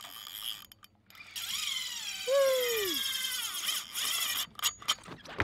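Spinning reel's drag buzzing as a hooked blacktip shark pulls line off. It starts about a second in and falls in pitch as the run slows. A few sharp clicks come near the end.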